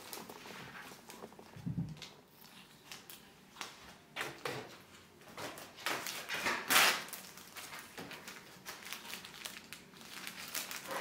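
Rustling and crinkling as a wooden chopping board is slid out of a cotton bag and its plastic wrap is peeled off. A low thud about two seconds in is the board knocking down on the table, and the loudest crinkle of the film comes a little before seven seconds.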